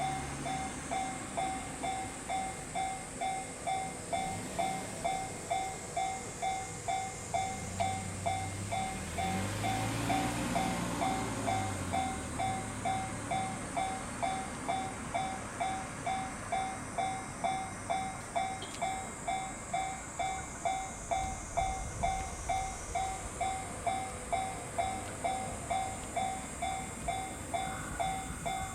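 Japanese railroad crossing warning bell ringing steadily, about two dings a second, as the crossing signals a train. About ten seconds in, a low engine hum rises and falls beneath it.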